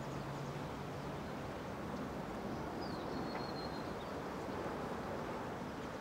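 Rural village outdoor ambience: a steady wash of distant background noise, with a low hum in the first second or so and a short high bird call, falling and then held, about three seconds in.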